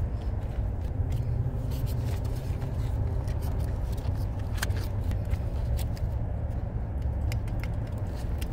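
A steady low rumble with a few sharp clicks and light scraping of plastic wiring connectors and cable being handled and plugged together.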